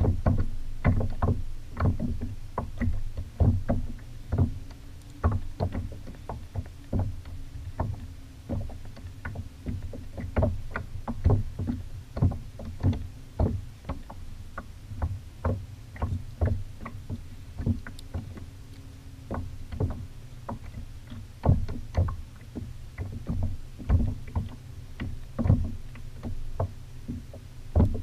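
Water knocking and splashing against the plastic hull of a Malibu sit-on-top kayak in irregular sharp slaps, one to three a second, over a steady low rumble.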